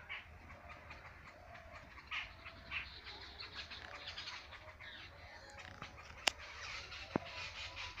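Many small birds chirping and calling together in a busy outdoor chorus, with a sharp click about six seconds in and a softer one a second later.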